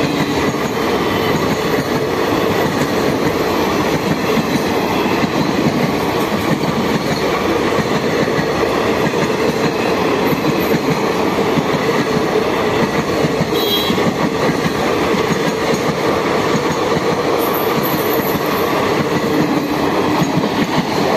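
Rake of ICF passenger coaches passing close by at speed: steady, loud rolling rumble and rattle of steel wheels on the rails.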